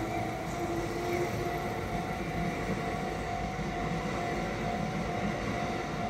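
Electric commuter train rolling through a level crossing, its wheels rumbling steadily on the rails, while the crossing's warning bell keeps ringing with a steady tone.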